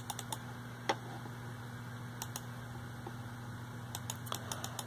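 Faint scattered clicks of a computer mouse and keyboard over a steady low electrical hum: a few near the start, one slightly louder about a second in, and several more near the end.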